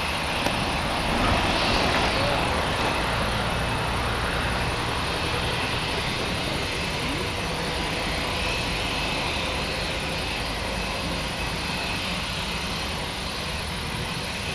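Airbus A319's two IAE V2500 turbofan engines at taxi idle: a steady whine over a rumble as the airliner taxis.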